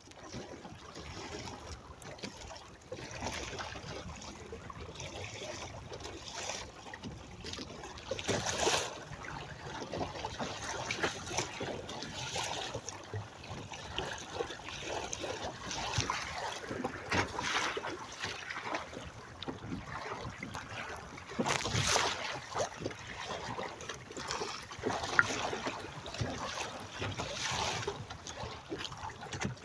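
Water rushing and splashing along the hull and outrigger float of a Hobie sailing kayak under way under sail, a steady wash with louder splashes every few seconds as waves slap the hulls.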